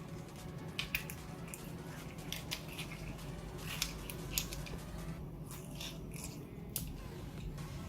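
Glitter slime being squished and worked by hand, giving irregular sticky clicks and small pops over a steady low hum.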